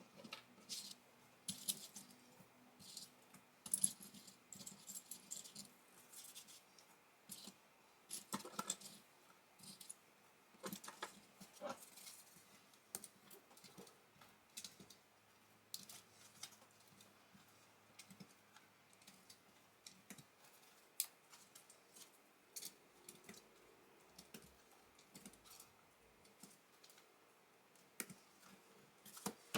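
Faint, irregular clicks and rattles of plastic Lego pieces being picked out, handled and pressed together.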